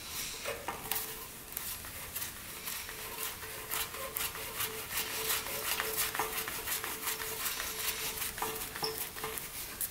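Light rubbing and irregular small clicks of a compression tester's fitting being threaded by hand into the spark plug hole of a small single-cylinder engine, with a faint steady hum underneath.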